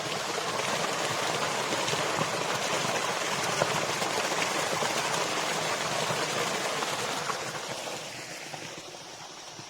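Water of a small stream rushing and gurgling steadily, fading down near the end.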